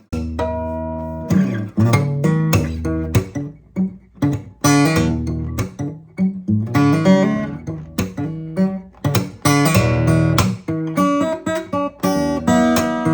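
Martin OM-28 steel-string acoustic guitar being played: a run of chords strummed and plucked one after another, each ringing out.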